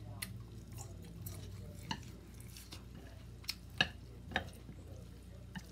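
Eating with chopsticks: about six scattered soft clicks and mouth sounds, the loudest near the middle, over a low steady hum.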